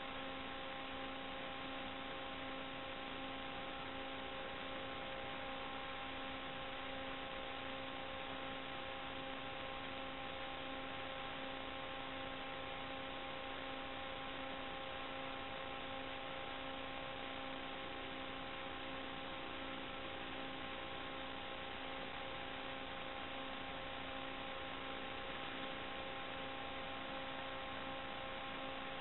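A steady electrical buzzing hum over an even hiss, unchanging throughout. This is the noise on the audio channel of an analog FPV video link as recorded by the goggle DVR, not the sound of the quadcopter's motors.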